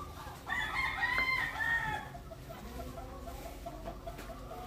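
A rooster crowing once, about half a second in, for about a second and a half, followed by faint quick clucking.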